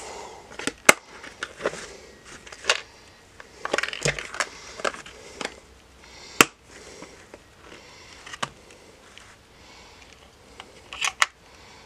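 Hard plastic cases of a precision screwdriver bit set clicking and knocking as they are lifted, moved and set down by hand, with small tools rattling inside. Irregular sharp clicks, the sharpest about six seconds in and a quick pair near the end.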